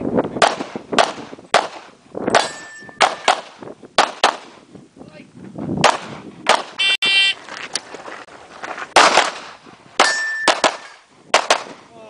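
Handgun shots fired in a long string of quick pairs and groups, about fifteen in all, with steel targets ringing briefly after some hits.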